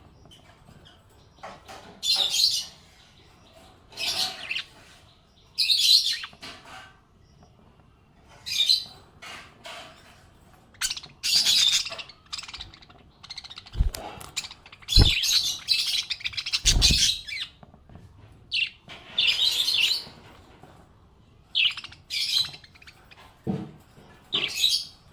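Small pet parrots chirping in short bursts of high, shrill calls every second or two. Three dull low thumps come about halfway through.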